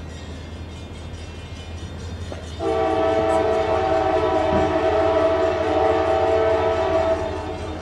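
Diesel locomotive air horn blowing one long multi-tone chord from the approaching CSX special train. The chord starts about two and a half seconds in, holds for about four and a half seconds, then cuts off, over a low steady hum.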